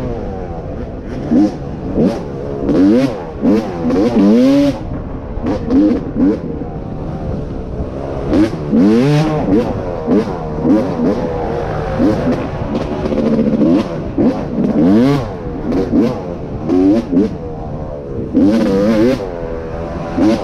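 Off-road racing motorcycle engine revving up and dropping back again and again, its pitch rising and falling every second or two with throttle and gear changes, with short bursts of noise over it.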